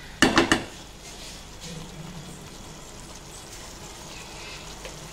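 A spatula knocked three or four times in quick succession against a curry pan, with a short ringing tone, followed by a faint steady hiss.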